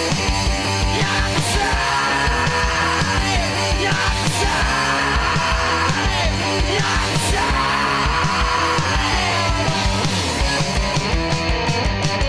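Punk rock song playing: electric guitar over a steady drum beat, with some notes bending up and down.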